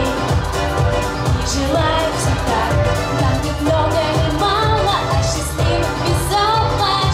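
Young girls singing a pop song into microphones over amplified pop backing music with a steady beat.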